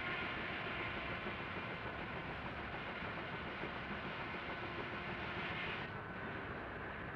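Steam mill machinery running, a steady rumble and hiss with a few faint steady tones. The upper hiss dulls for about a second and a half near the end.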